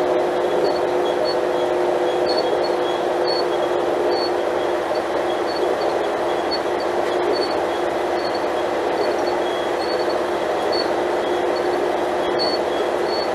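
Alstom Coradia Lint 41/H diesel multiple unit running: a steady drone with a constant two-note hum through it, and short high chirps that come and go every second or so.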